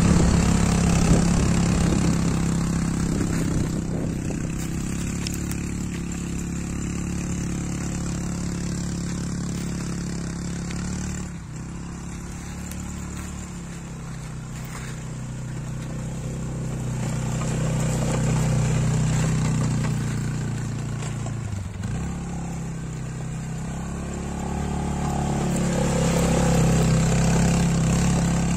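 SYM Trackrunner quad bike's engine running as it is ridden over rough ground. The engine note rises and falls with the throttle, and the sound swells and fades as the quad drives away and comes back, with dips about eleven seconds in and again past twenty seconds.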